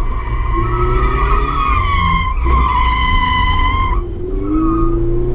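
Toyota 86's tyres squealing hard at the limit of grip through a corner for about four seconds, which the driver reads as understeer. Underneath is the steady note of its flat-four engine, heard from inside the cabin, rising in pitch near the end.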